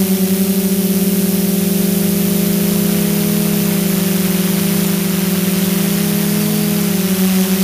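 DJI F550 hexacopter's six motors and propellers running as heard from its onboard camera: a steady hum with a hiss over it. The pitches shift slightly about six to seven seconds in as the motors change speed.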